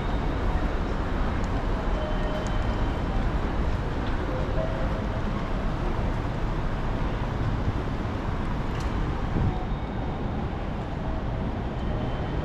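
Steady din of a busy station area, traffic and crowd noise mixed, with a few faint short tones and a brief click near the end.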